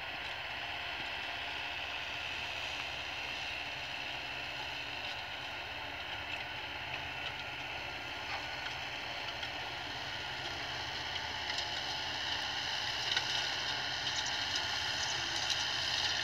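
Tractor engine and trailed manure spreader running steadily while spreading cattle manure, the sound slowly growing louder in the second half, with a few small clicks near the end.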